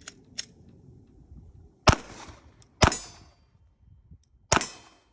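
Three pistol shots fired during a drill, the first two about a second apart and the third about a second and a half later, each with a short echo. Two light clicks come just before them.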